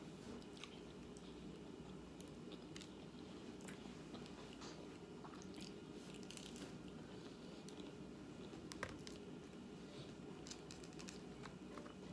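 A person chewing food close to the microphone, with scattered soft crunches and mouth clicks and one sharper click about nine seconds in, over a steady low background hum.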